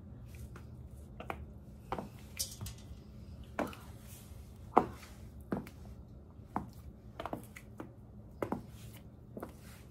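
High-heeled sandals clicking on a tile floor as she walks and turns: about a dozen heel strikes at uneven spacing, the sharpest a little before halfway. A low steady hum runs underneath.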